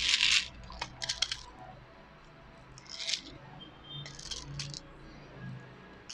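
Airsoft BBs being pressed one by one into the magazine of a WE Glock 23 gas blowback pistol: small sharp clicks and rattles in short clusters, with pauses between.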